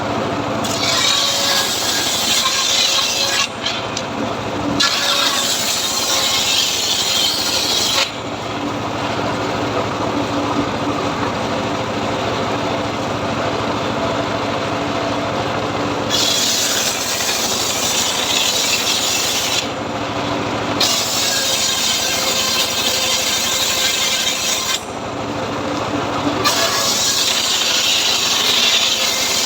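Homemade powered saw rig running steadily while its blade cuts teak. Several stretches of loud rasping cutting noise come and go over the steady machine hum, with short pauses between cuts.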